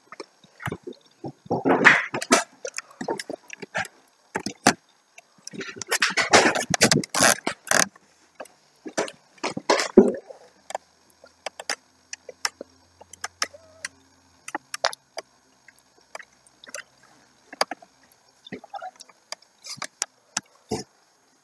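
A cat's claws scrabbling and scratching on a rolled-up rug as it climbs. Three noisy bursts of scraping, the longest lasting about two seconds, come amid scattered light clicks and rustles.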